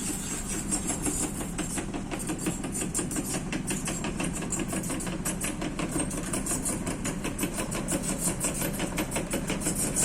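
Diesel engine of a heavy construction machine running steadily, with a rapid, regular ticking clatter over a low hum.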